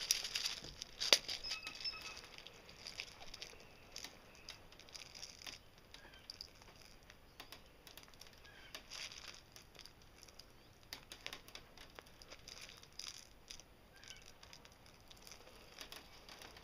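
Airsoft BBs clicking and rattling as they are loaded into a Smith & Wesson M&P40 CO2 pistol magazine, some of them dropping: irregular small clicks, the loudest about a second in.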